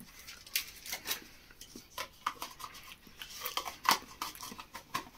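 A person chewing an edible viola flower: irregular short wet mouth clicks and smacks.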